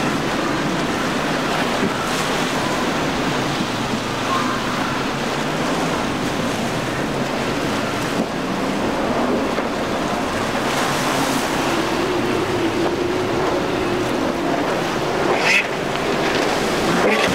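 Breaking surf and the rush of a boat's wash, with the drone of twin Suzuki 300 hp outboards as the boat powers through rough inlet waves. A couple of quick rising sweeps come near the end.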